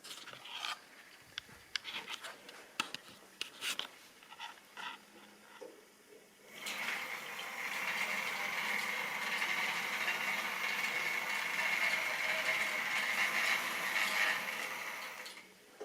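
Model railway train running on the track: light clicks and knocks for the first six seconds, then a steady rolling rush of wheels on rail with a faint whine, which eases off near the end.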